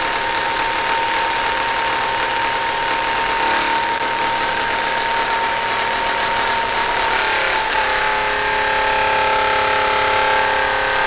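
Theragun PRO percussion massage gun running at 2200 percussions per minute: a steady mechanical buzz whose pitch pattern shifts about seven seconds in. The owner notes that this unit rattles at this speed, unsure whether from the machine itself or from use.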